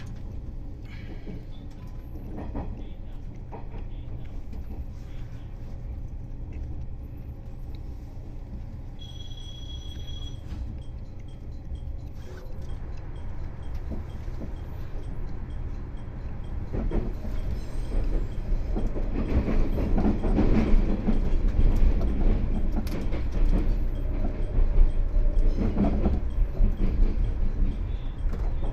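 381-series electric train running on the rails, heard from the front: a steady low rumble with wheel clatter that grows louder in the second half. A brief high steady tone sounds about nine seconds in.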